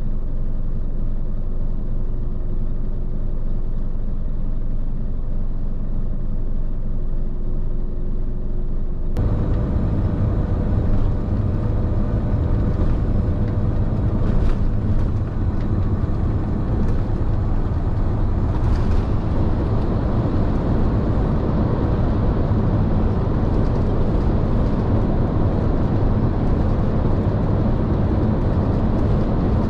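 Heavy truck's diesel engine idling steadily, heard from inside the cab. About nine seconds in the sound cuts to the truck under way on the expressway, where engine and road noise are louder and fuller.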